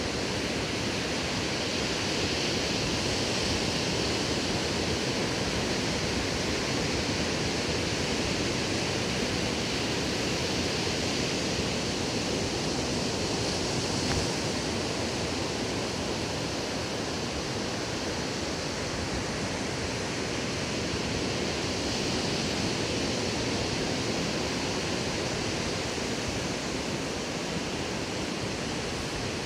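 Ocean surf breaking and washing onto a sandy beach as a steady, even rush with slight swells in loudness.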